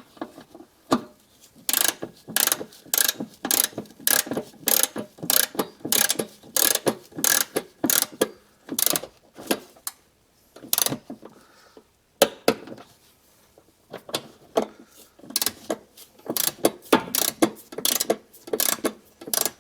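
Ratchet of a click-type torque wrench clicking in repeated back-and-forth strokes as the upper rear shock bolts are tightened to 33 ft-lbs, with a couple of short pauses.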